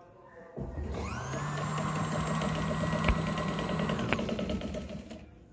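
Domestic sewing machine stitching a seam through the fabric: it starts about half a second in, speeds up, runs steadily at speed for about three seconds, then stops and winds down.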